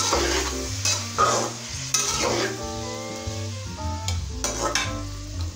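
Raw chicken pieces sizzling in hot oil in a karahi, stirred with a spatula in several scraping strokes against the pan.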